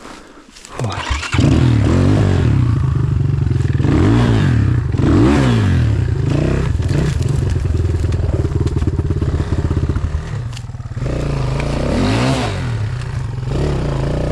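Enduro motorcycle engine running hard, coming in loud about a second in and revved up and down in repeated blips, as on a bike being worked over a log in the woods.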